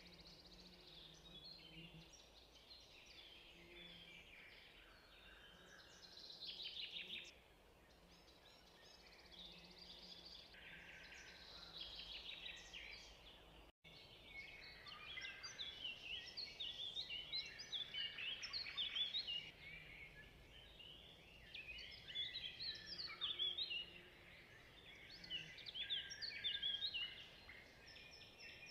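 Faint birdsong: many small birds chirping and twittering, scattered at first and growing dense and busy from about halfway through.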